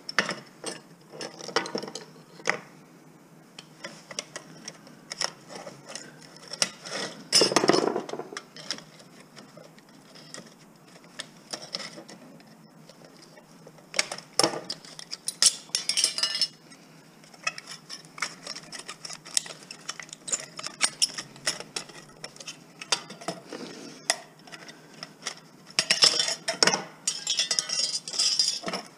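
Small metal parts clinking, clicking and scraping as a scrap component is worked apart by hand with tools. The clatter is irregular, with louder busy stretches about a quarter of the way in, around the middle, and near the end.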